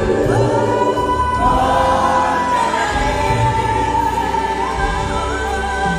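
Gospel worship choir singing long held notes, sliding between pitches over a steady low musical backing.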